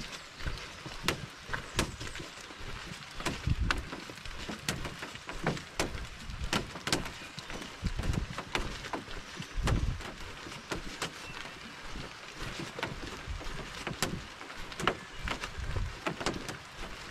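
Footsteps thudding along a dirt portage trail under an overturned canoe carried on the shoulders. Irregular sharp ticks and knocks come from the hull overhead.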